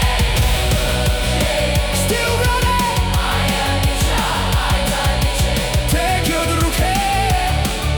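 Music: a song with a fast, heavy bass beat under sustained, gliding melody lines.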